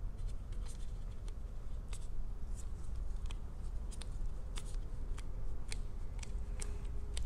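Scattered faint clicks and crinkles of disposable-gloved hands handling a plastic spool of putty gasket strand and pressing the strand onto a metal pipe flange, over a low steady hum.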